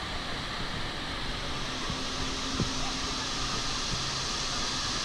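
Steady rushing of water from waterfalls cascading down an artificial volcano's rock face.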